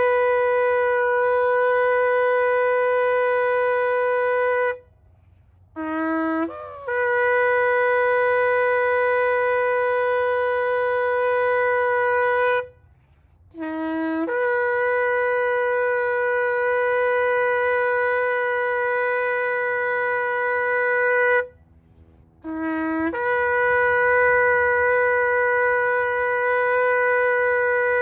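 Shofar blown in long held blasts of about seven seconds each, with short pauses for breath between them. Each blast opens with a brief lower note that jumps up to a steady higher tone.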